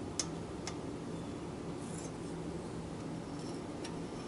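A few faint metallic clicks as a feeler gauge blade is worked between the rocker arm and valve stem of a Honda GCV190 engine while checking intake valve clearance, over a steady low hum.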